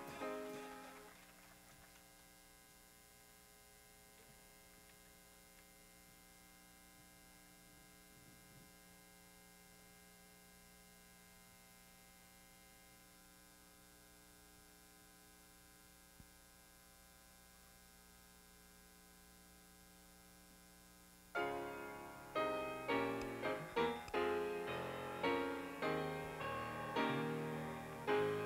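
Music fades away, leaving a faint, steady electrical mains hum for about twenty seconds; then a piano starts abruptly near the end, playing separate struck notes that ring and die away.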